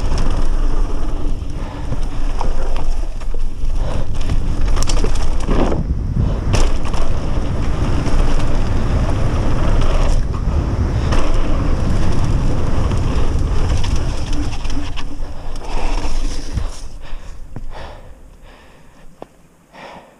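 Downhill mountain bike ridden fast on a dirt trail: wind rumbling over the mounted camera's microphone, tyres on dirt and the bike's frame and chain rattling, with sharp knocks over bumps. It fades out over the last few seconds as the bike slows.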